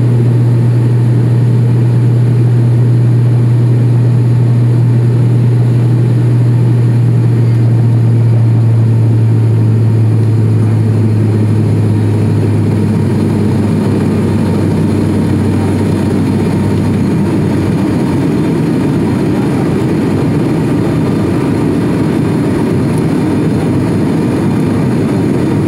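Cabin sound of a turboprop airliner climbing after takeoff: the steady drone of the engines and propellers, with a deep propeller hum that weakens about halfway through.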